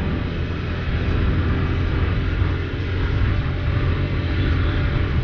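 KTM RC 390's single-cylinder engine running steadily at a slow, gentle cruise, with wind and road noise over it.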